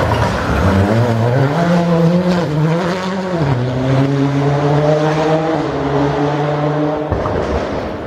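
Toyota Corolla WRC rally car's turbocharged 2.0-litre four-cylinder engine at full throttle passing close by. Its pitch climbs, drops sharply at a gearchange about three seconds in, then holds steady and falls away near the end.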